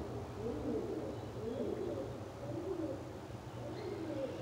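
Pigeons cooing: a continuous run of short, low, overlapping coos that rise and fall, over a steady low rumble.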